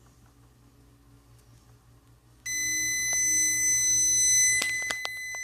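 Multimeter's continuity beeper sounding a steady high beep that starts suddenly about halfway through, with a few clicks from the probes near the end. The beep shows a dead short across the 10 µF capacitor: the capacitor has failed shorted.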